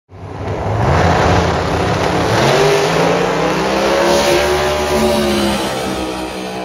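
Drag racing cars accelerating hard down the strip at full throttle, the engine note climbing in pitch. The sound cuts in suddenly at the start.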